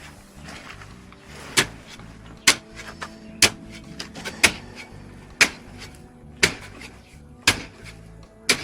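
Hammering on a building site: sharp, evenly spaced blows, about one a second.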